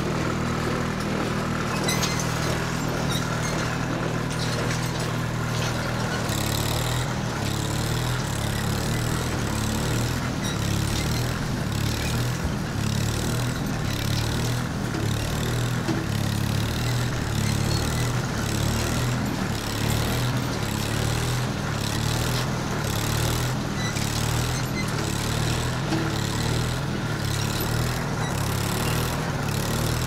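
Heavy farm machine engine running steadily under load. From about six seconds in, the drone turns into a rhythmic pulsing.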